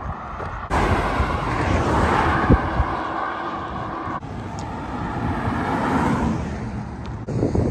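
Road traffic on a highway: cars passing with tyre and engine noise, in stretches that change abruptly several times.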